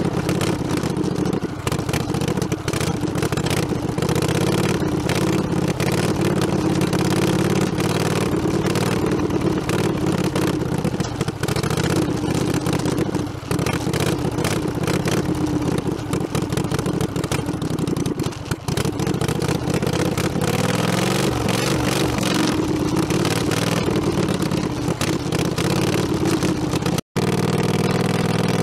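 A small tractor's engine running steadily as it is driven over a rough dirt road, with constant rattling and knocks as the machine bounces. The engine note shifts about twenty seconds in, and the sound cuts out for an instant near the end.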